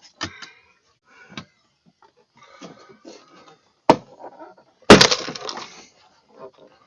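Plastic car door trim clicking and knocking, with a hard click about four seconds in and a loud snap about five seconds in, like a push-in trim clip popping, followed by a short rattle.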